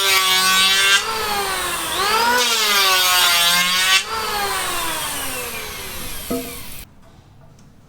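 Electric power saw running at full speed. About two seconds in the motor's pitch dips under load as it cuts, then recovers. From about four seconds it winds down in a long falling whine and stops before the end.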